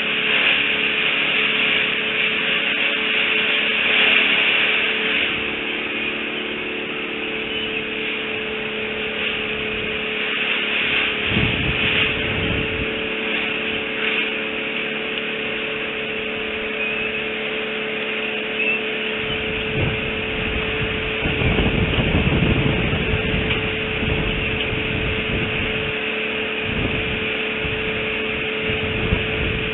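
Steady background hum and hiss with two constant tones, broken by low rumbles about 11 seconds in and again from about 19 to 25 seconds.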